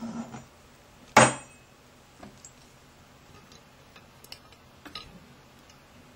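Clicks and knocks from handling a softbox kit's ball head: one sharp knock about a second in, then a few lighter clicks.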